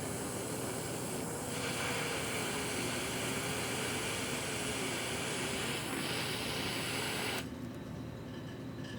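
A small electric blower or fan motor running with a steady hiss and a faint wavering hum, switched off suddenly about seven seconds in.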